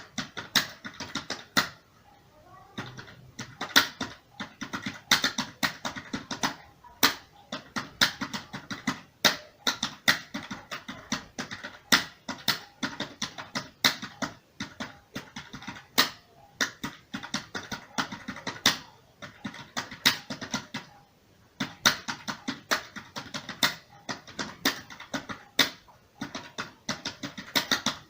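Computer keyboard typing: rapid, irregular keystroke clicks at a steady typing pace, with a brief pause about two seconds in and another about twenty-one seconds in.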